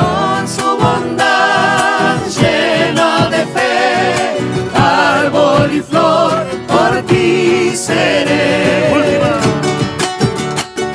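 Live acoustic folk music: strummed guitars and a small strummed string instrument, with a large bombo drum beaten with sticks keeping a steady beat. Singing with vibrato runs over it and stops about a second before the end.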